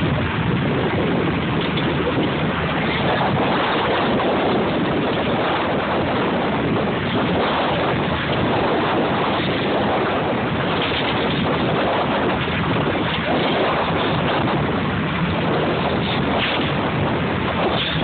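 Steady rushing of wind across the microphone mixed with water noise around a boat at sea.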